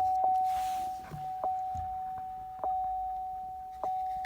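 Trailblazer SS dashboard warning chime dinging on a single high pitch. Each ding rings on and fades; the first come about half a second apart, the rest about a second apart. It sounds with a new ignition switch plugged in and the key being cycled.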